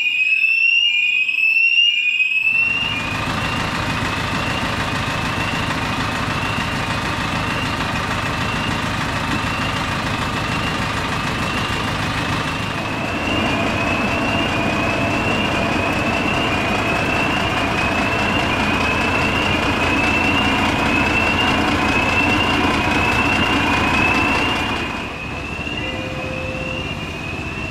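Electronic fire alarm sounder giving a rapidly repeating rising whoop, about two a second. From about two seconds in, a vehicle engine runs steadily beneath it. Both fade near the end.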